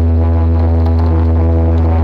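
Loud bass-heavy electronic music played through a large sound system, dominated by one long held deep bass note.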